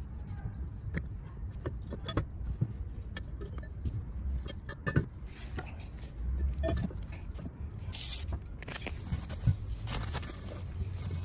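Light metal clicks and knocks as a camshaft is lifted out of the aluminium cylinder head of a Peugeot/Citroën 1.6 HDi diesel, then paper towel rustling as the head is wiped, over a low steady rumble.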